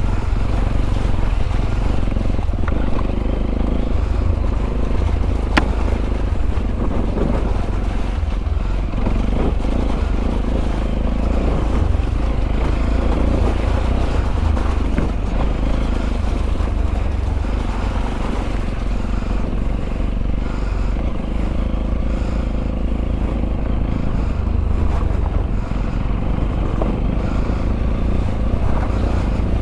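Sinnis Terrain 125's single-cylinder four-stroke engine running steadily as the motorcycle is ridden off road. A single sharp knock comes about five and a half seconds in.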